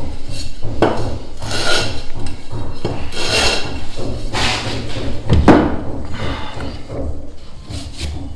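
Gypsum decorative-stone tile being rubbed against a concrete floor screed to grind down its rough edge: a series of rasping scrapes, roughly one a second, with a heavier knock of the tile about two-thirds of the way through.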